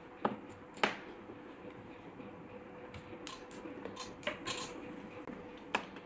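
A handful of sharp, separate clicks and taps from test leads and a DC power cable plug being handled on a repair bench, over a faint steady hum.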